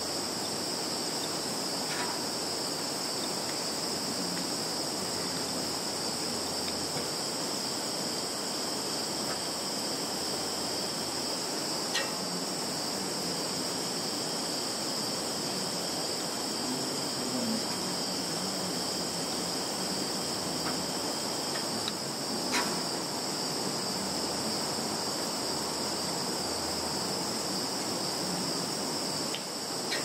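Chorus of field insects singing, a steady high-pitched trill that never breaks, with a few faint clicks.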